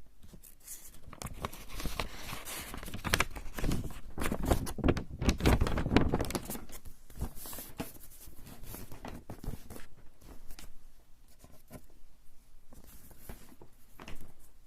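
Eraser rubbed back and forth on coarse straw paper (warabanshi), a long run of quick rubbing strokes. The strokes are heaviest in the first half and get lighter and sparser toward the end.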